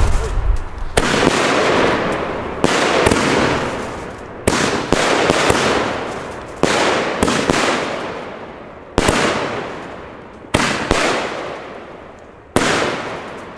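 Pyroland 'Bär Bock' firework battery firing shot after shot of strobe stars. Each shot is a sudden sharp report followed by a rush of noise that fades over a second or two, about every one to two seconds.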